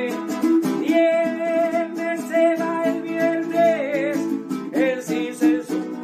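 A man singing long held notes to his own steady strumming on a jarana, the small Mexican guitar of son jarocho; the sung note wavers briefly about four seconds in.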